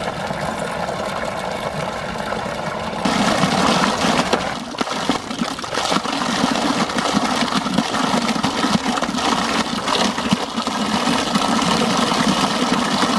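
Water running in a concrete gutter, a steady rushing splash that gets louder about three seconds in, where a stream pours from a pipe and splashes into the channel.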